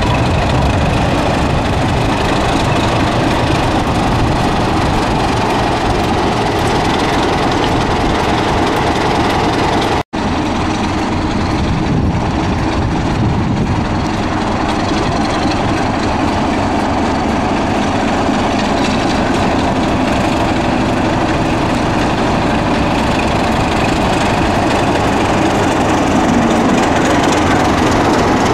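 BR Class 26 diesel locomotive's Sulzer six-cylinder engine running steadily as the locomotive moves slowly past. The sound cuts out for an instant about ten seconds in.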